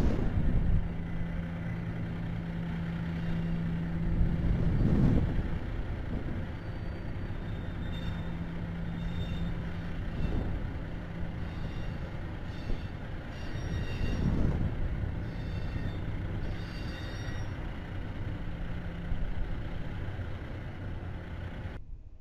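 Double-stack intermodal train of container well cars rolling past: a steady rumble of steel wheels on rail with a low hum, two louder swells, and short faint high wheel squeaks. It cuts off abruptly near the end.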